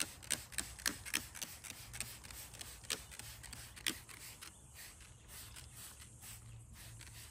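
Hand trigger spray bottle squirting acid cleaner onto an aluminium boat hull in a run of short sharp sprays, coming less often and fainter after about four seconds, over a faint low hum.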